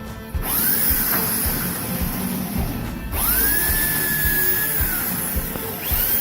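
A small handheld power tool, such as a drill, spinning up three times: briefly about half a second in, in a longer run from about three to five seconds that winds down, and again near the end. Music plays underneath.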